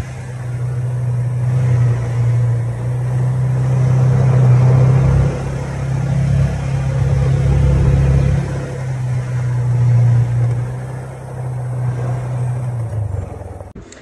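Polaris side-by-side utility vehicle driving, heard from its seat: a steady low engine drone with road noise, swelling and easing a little as it goes. The engine sound fades out shortly before the end.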